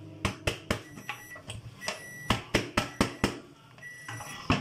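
Sharp knocks of a plastic container against the rim of a large aluminium pot as rice is tipped into boiling water: three in the first second, a quick run of five in the middle, and one near the end. Short high-pitched beeps sound now and then in the background.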